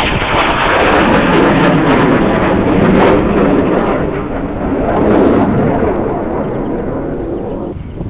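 Military jet aircraft passing over, a loud rushing swell with a sweeping, phasing quality that peaks twice and fades near the end. It is heard in sped-up timelapse audio with small clicks.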